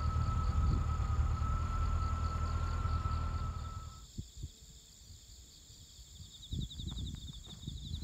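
Night insects chirping in an even rhythm over a low rumble and a faint steady whistle. About four seconds in, the rumble and whistle cut off, leaving it quieter with a few soft knocks, and a fast high insect trill starts near the end.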